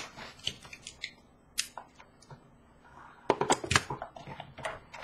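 A sealed hockey card box being cut open with a box cutter and unpacked by hand: scattered short clicks, scrapes and cardboard rustles, busiest about three and a half seconds in.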